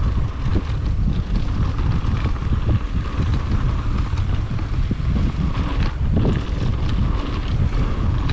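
Wind rushing over the microphone of a mountain bike descending a dirt trail, with a steady low rumble and scattered small knocks from the bike on the rough ground.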